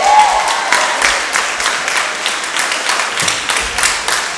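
Audience applauding steadily with dense hand-clapping, a whoop of cheering at the start.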